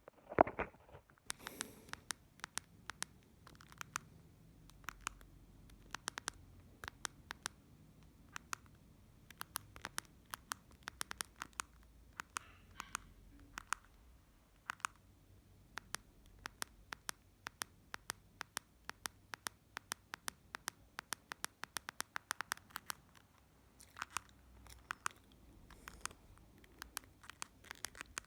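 Keypad buttons of a Doro 1360 mobile phone clicking as they are pressed: many quick, light clicks in irregular runs, sometimes several a second.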